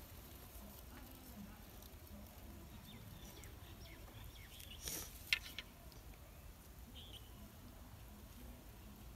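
Quiet outdoor background: a steady low rumble with a few faint high chirps, and a brief rustle followed by a sharp click about five seconds in.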